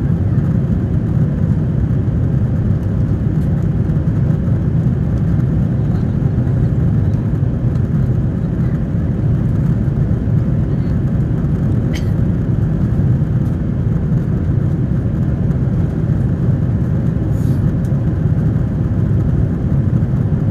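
Steady low roar of an airliner's cabin in flight, the jet engines and airflow heard from a passenger seat, with one small click a little past the middle.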